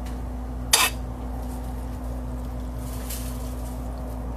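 A single brief clink of a utensil against a metal pan about a second in, over a steady low hum.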